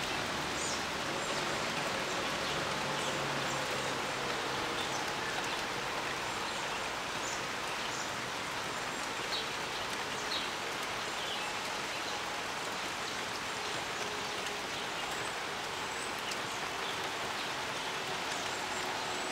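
Steady rain falling, an even hiss with scattered short ticks.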